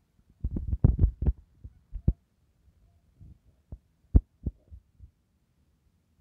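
Irregular dull, low thumps: a quick run of several close together about half a second in, then a few single ones spread over the next few seconds.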